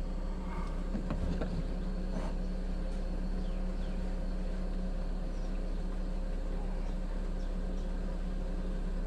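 Steady low hum of the Kings 75-litre dual-zone portable fridge's compressor running on maximum cooling, with a few faint clicks in the first couple of seconds.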